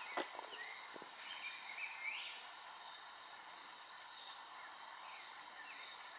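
Steady, high-pitched drone of insects in the forest, with scattered short bird chirps over it and a couple of faint clicks about a second in.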